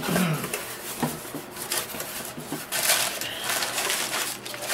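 Cardboard box flaps and paper packing rustling and crinkling as a shipping carton is unpacked, with scattered clicks and crackles.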